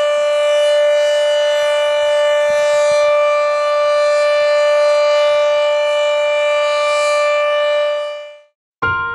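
Civil defense siren sounding one long, steady tone that signals a moment of silence. It fades out and stops near the end.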